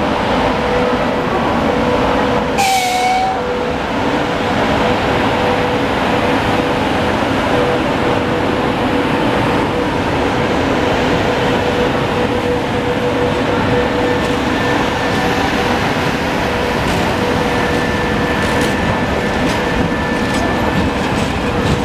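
VL80S two-section electric freight locomotive and its train of tank cars and timber flat wagons rolling past, a steady rumble of wheels on rail with a steady hum. A short hiss with a brief tone comes about three seconds in, and wheel clicks over rail joints pick up near the end.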